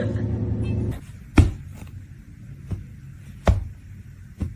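A steady low rumble that cuts off about a second in, followed by four sharp knocks, roughly one a second, the first and third the loudest.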